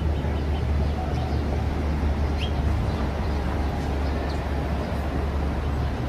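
City street ambience: a steady low rumble of traffic, with a few short, faint bird chirps, the clearest about two and a half seconds in.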